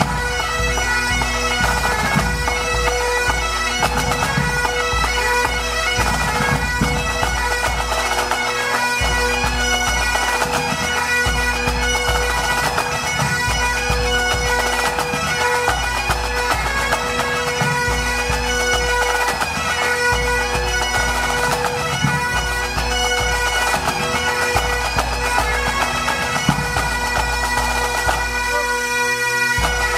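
Pipe band playing: Highland bagpipes with steady drones under the chanter melody, backed by snare, tenor and bass drums beating a regular pulse.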